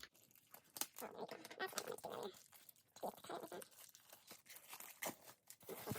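Album packaging being handled and opened: plastic wrap and cardboard crinkling and tearing, with scattered small clicks and rustles.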